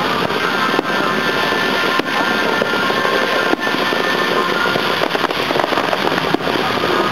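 Aerial fireworks crackling densely and without a break, with four sharp bangs at irregular intervals.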